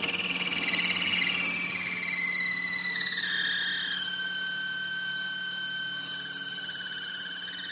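Metal lathe boring a steel workpiece, the cutting tool squealing against the metal as it cuts. A high-pitched squeal with several overtones starts suddenly, drops in pitch over the first few seconds, holds steady, then starts to rise again near the end.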